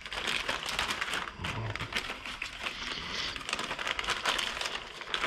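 Small plastic parts bags crinkling and rustling as they are handled, with scattered small clicks throughout.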